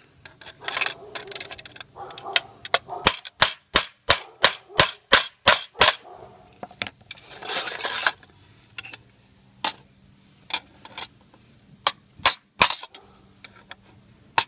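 A hammer tapping a screwdriver against a metal locknut to drive it tight on a cable connector in a knockout hole: sharp metallic taps, a fast even run of them a few seconds in, then scattered single taps, with some rustling between.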